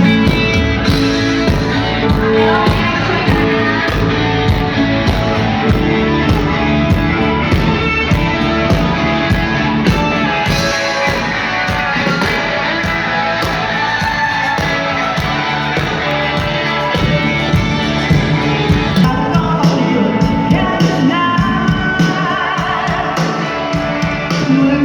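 Loud amplified band music with singing, a steady drum beat and guitar, in a rock style.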